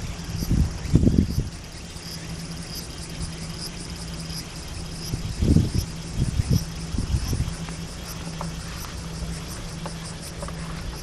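Crickets chirping steadily in a rapid, regular high-pitched pulse, with a few low thuds and a steady low hum underneath.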